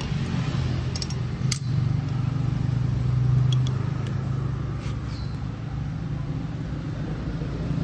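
Modenas MR3 motorcycle's single-cylinder four-stroke engine running steadily at idle, with a few light clicks over it.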